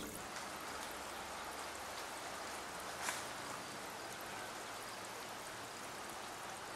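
Steady, even rushing noise of running water, like a small stream, with a faint tick about three seconds in.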